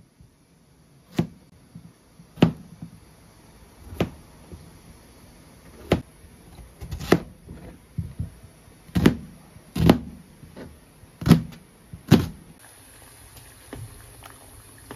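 Kitchen knife chopping a peeled potato on a plastic cutting board: about nine sharp chops, roughly one every second or so, with lighter knocks between some of them. The chopping stops a little before the end.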